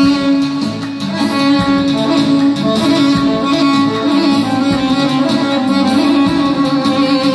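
Electronic keyboard playing a melody in a violin-like string voice, with held notes over a steady backing.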